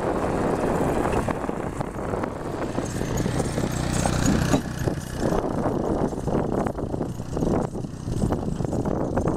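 Wind buffeting the microphone with a low engine drone underneath, a faint steady hum standing out in the middle.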